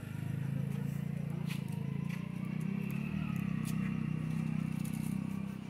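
An engine running close by: a steady low rumble with an even pulse, easing off near the end.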